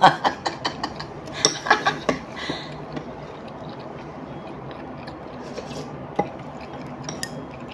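Light clicks and clinks of chopsticks against a ceramic noodle bowl, mostly in the first two seconds, over a low steady room background. One or two more single taps come later.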